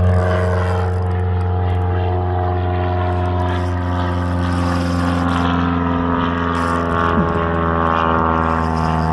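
Boat motor running steadily, its pitch easing down over the first few seconds and then climbing back up.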